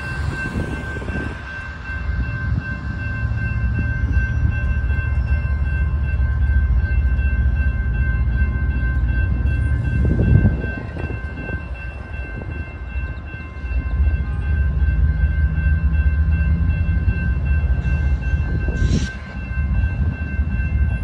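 A railroad crossing warning bell rings steadily over the low rumble of a train at the crossing. Road vehicles go by about halfway through and again near the end.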